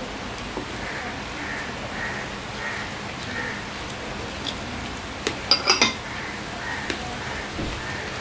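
Small bowl clinking against crockery in a quick run of four sharp clinks about five and a half seconds in, as it is scraped out over a plate of rice and set down. Steady hiss of rain underneath.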